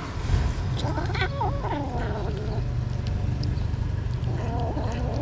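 A small kitten meowing: one drawn-out meow about a second in, its pitch falling, and a shorter one near the end, over a steady low background rumble.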